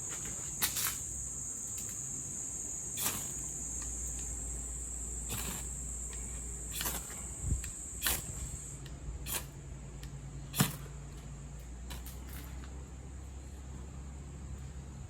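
Zippo Mag Strike ferrocerium rod scraped with its striker about nine times in short, sharp strokes at irregular intervals, to throw sparks into paperbark tinder. A steady high cricket chorus runs behind it and grows fainter about two-thirds of the way through.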